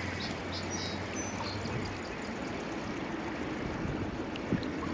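Steady rushing noise of wind and wind-driven choppy lake water around a small kayak.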